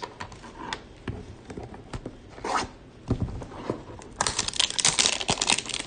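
Plastic wrap being torn and peeled off a trading-card hanger box: scattered small crackles and ticks at first, then dense crinkling and tearing from about four seconds in.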